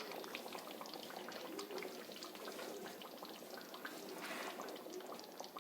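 Thickened chicken curry bubbling faintly in its pot, with scattered small pops and plops.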